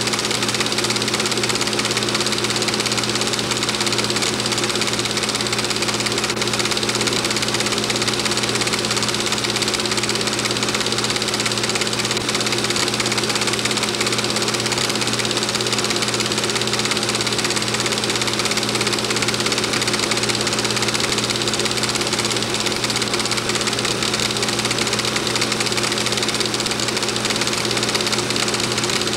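Film projector running: a steady mechanical whir with a low hum.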